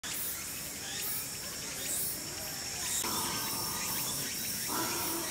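Insects chirring steadily: a high, even tone with pulsing above it. A faint pitched sound joins about three seconds in.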